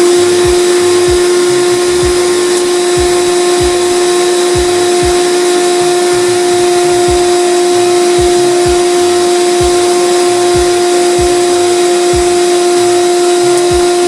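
Vacuum cleaner running steadily at full speed with a constant whine, sucking built-up dust out of an opened electric fan.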